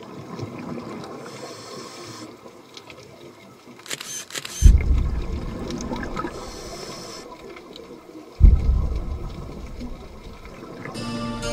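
Logo-intro sound effects of a camera: shutter clicks and mechanism noises, with two heavy deep booms about four seconds apart. Music starts near the end.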